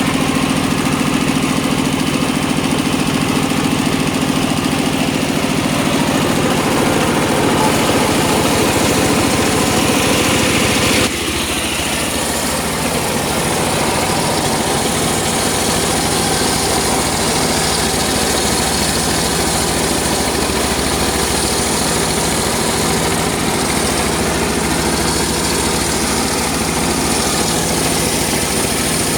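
Engine-driven circular saw machine running steadily with a continuous engine drone. The sound changes abruptly and gets a little quieter about eleven seconds in.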